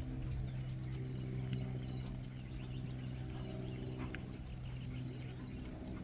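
A steady low engine hum from running machinery, with birds chirping over it.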